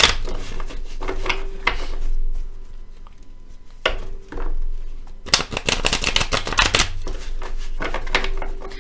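A deck of tarot cards being shuffled by hand: rapid clattering card clicks, a burst at the start and a longer one from about five seconds in, with quieter handling in between.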